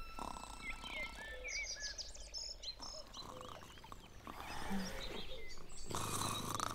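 Birds chirping and twittering in a woodland ambience, many short rising and falling chirps. Near the end a louder breathy rushing sound comes in.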